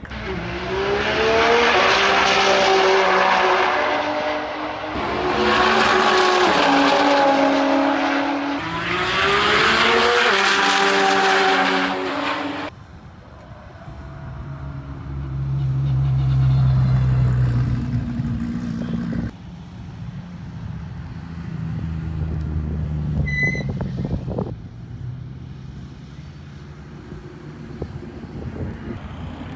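High-powered race car at full throttle, its engine note climbing through three gears with a short dip at each shift. It then gives way to a quieter, lower engine sound of a supercar rolling past at low revs.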